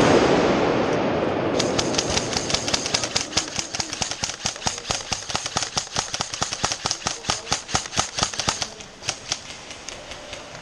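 A sudden loud burst of noise that fades over about a second and a half, then airsoft guns firing rapid strings of shots, many a second, for about seven seconds before thinning out near the end.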